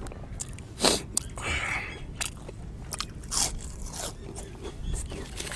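A man biting and chewing crisp fried street snacks close to a clip-on microphone. Sharp crunches come one after another, the loudest about a second in, with softer crunches and chewing every half second or so after.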